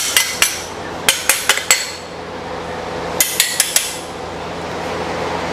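Aluminized steel deck-oven gas burner being knocked against a hard surface in three quick runs of ringing metallic taps, shaking loose the debris clogging the burner.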